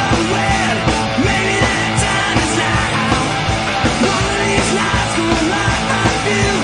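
Rock music with a steady driving beat.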